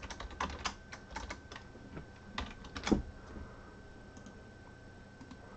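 Typing on a computer keyboard: a quick run of key clicks for about three seconds, then the typing stops.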